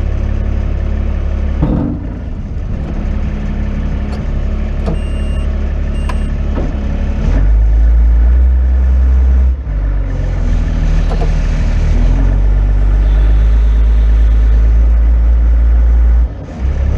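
Farm tractor engine running loudly and steadily, pulling harder and growing louder about seven seconds in, with brief drops in level about nine seconds in and again near the end.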